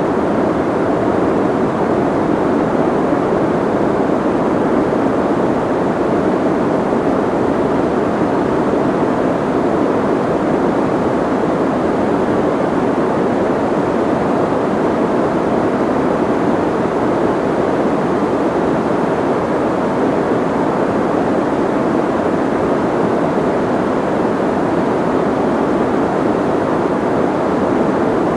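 Soft white noise: a steady, even, muffled hiss with its weight in the low middle and the highs rolled off, unchanging throughout.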